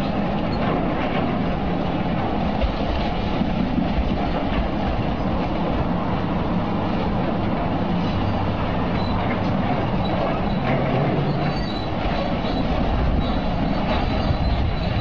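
Diesel engines of several tracked hydraulic excavators running steadily under load as they push down a wall, with a continuous low rumble and scattered small clicks and knocks of breaking masonry.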